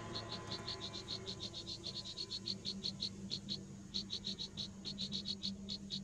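Nestlings begging in the nest: a rapid, uneven series of short, high peeps, several a second.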